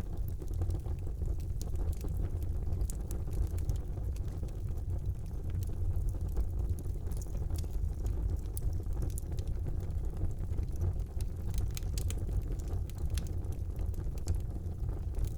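Fire burning in a fireplace: a steady low rumble of flames with scattered sharp crackles and pops, which come more often about eleven seconds in and again near the end.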